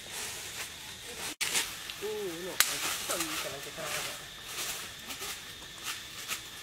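A person's voice, soft and faint, over a rustling hiss, with one sharp click about two and a half seconds in.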